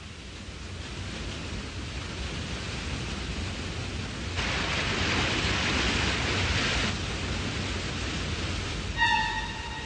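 Steady rushing noise that builds up, with a brighter hiss from about four to seven seconds in. Near the end a sustained pitched tone enters suddenly.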